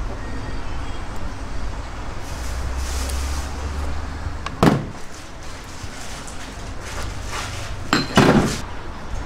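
Knocks of earthenware sauce pots being set down on a stainless steel counter: one about halfway through and a louder double knock near the end, over steady background noise with a low rumble for a couple of seconds before the first knock.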